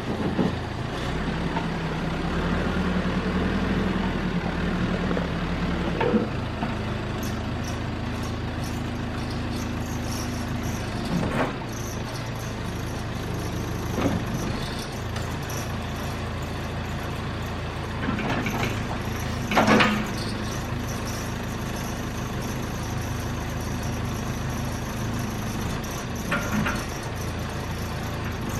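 Caterpillar backhoe's diesel engine running steadily, revving up for a few seconds near the start as the hydraulics work under load. A few sharp knocks and clanks come through over it, the loudest about twenty seconds in.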